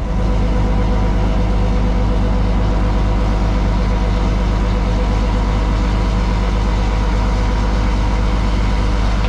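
Transfer pump running loud and steady, pumping 32-0-0 liquid fertilizer out of a tanker trailer into storage tanks, with an even engine-like hum under it.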